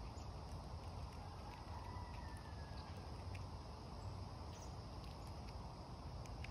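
Eastern chipmunk husking and chewing sunflower seeds close to the microphone: faint scattered clicks and crackles over a steady low outdoor rumble.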